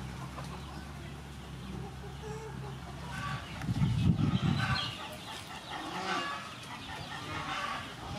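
Chickens clucking, with a low steady hum under the first few seconds and a louder low rumble about four seconds in.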